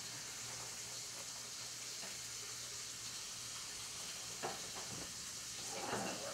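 Beef brisket searing in a stainless steel sauté pan, the fat sizzling with a steady, even hiss. A few faint clicks sound about four and a half seconds in and near the end.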